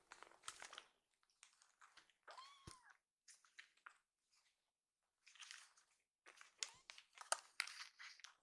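A kitten gives one short mew that rises and falls, about two and a half seconds in. Around it are clusters of faint crackly clicking and smacking noises from the kittens.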